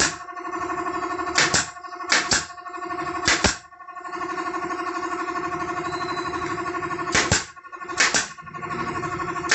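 Pneumatic nail gun firing shots into the wooden table frame, each one a short sharp snap with a burst of air. There are four in the first three and a half seconds, then a pause, then more near the end. Under them an air compressor motor hums steadily.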